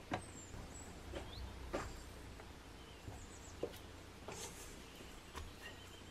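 Faint handling sounds of sticky bread dough being pulled off a stand mixer's dough hook and a silicone spatula scraping a stainless steel mixing bowl: a few soft clicks and taps, with faint short high chirps now and then.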